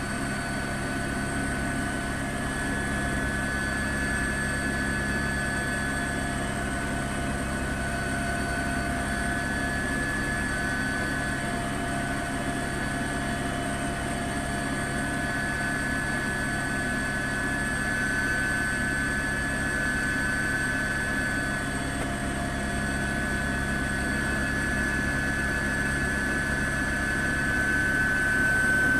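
Helicopter noise: a steady turbine whine over the fast low chop of the rotor, running on unchanged.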